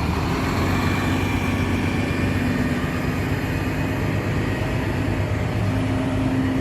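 Dump truck running steadily on the move: a constant engine drone with a few held tones and road noise.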